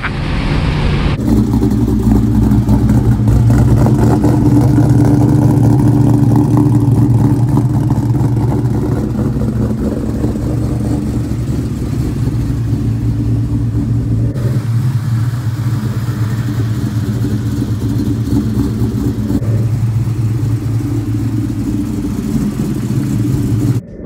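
2004 SVT Mustang Cobra's supercharged 4.6-litre V8, with stage 3 Comp Cams, BBK longtube headers, an off-road H-pipe and a Borla Stinger exhaust, running steadily at idle after a brief bit of driving about a second in.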